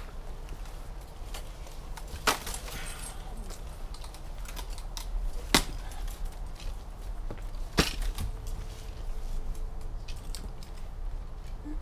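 Rattan fighting weapons striking in an armoured combat bout: a handful of sharp wooden cracks, the loudest about five and a half seconds in, with others about two and eight seconds in, over a low steady hum.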